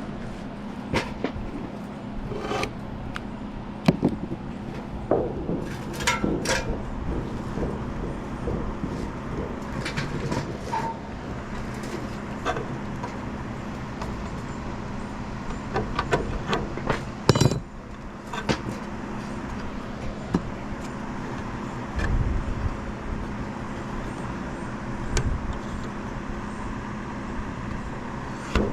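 A steady motor hum runs throughout, with scattered knocks and clicks from work on a mobile home roof. The loudest knocks come about 4 seconds in and again about 17 seconds in.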